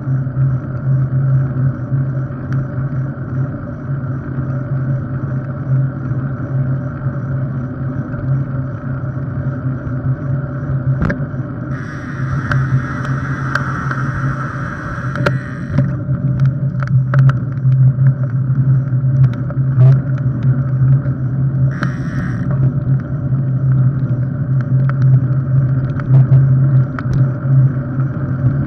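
Polygon Stratos S7 road bike on carbon wheels rolling along an asphalt path: a steady low hum of tyres and drivetrain, with scattered clicks and knocks. A louder hiss rises for about four seconds midway and briefly again later.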